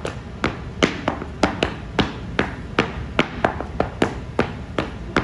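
Heeled dance shoes striking a plywood board in zapateado footwork: sharp taps and stamps, about three a second in an uneven, syncopated rhythm, each with a short wooden ring.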